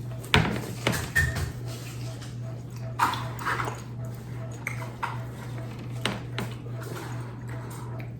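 A few scattered knocks and clatters, several in quick succession near the start and more about three and six seconds in, over a steady low hum.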